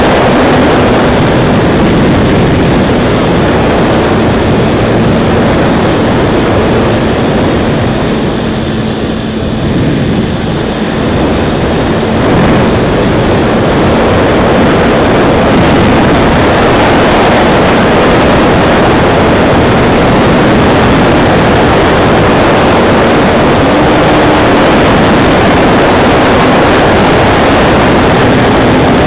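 Electric motor and propeller of a FunCub radio-control model plane running in flight, with heavy wind rush over the onboard microphone. It is a steady, loud noise with a faint hum underneath that eases briefly about nine seconds in, then returns.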